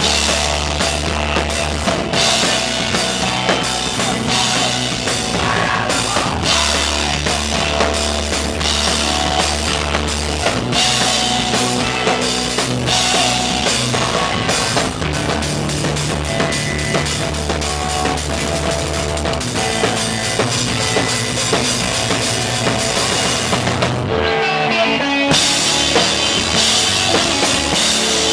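Rock band playing live and loud: a hard-hit drum kit with crashing cymbals up front over electric bass and guitar. Near the end the drums and bass stop for about a second, leaving the guitar ringing, then crash back in.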